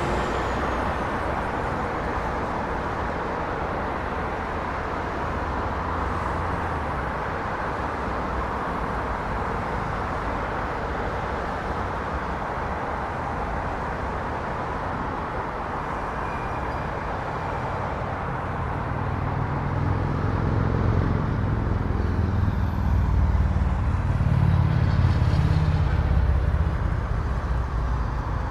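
Road traffic: a steady wash of passing cars, with a vehicle's low engine rumble swelling past in the second half and fading near the end.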